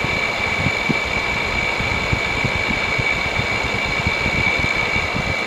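5,000 BTU Frigidaire window air conditioner running on high cool, its fan blowing hard with a steady high-pitched whine over an uneven low rumble. The owner says the noise it makes comes from a bad fan motor.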